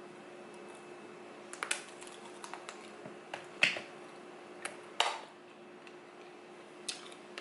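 Scattered sharp clicks and taps, about eight of them at uneven times, the loudest near the middle, over a faint steady hum.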